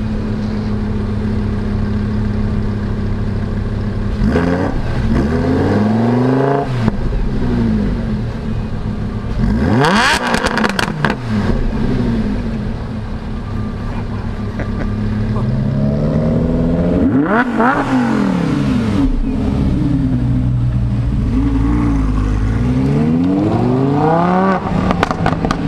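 Lamborghini Huracán's 5.2-litre V10 idling, revved in four bursts that climb and fall back: about four seconds in, about ten seconds in with sharp crackles, around seventeen seconds, and near the end as the car pulls away.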